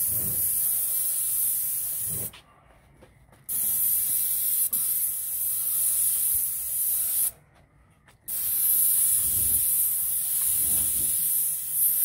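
Graco Ultra Max II 490 airless paint sprayer's gun spraying through a 310 fine-finish tip at about three-quarter pressure: a steady high hiss of atomizing paint. It runs in three passes, the trigger released twice for about a second each.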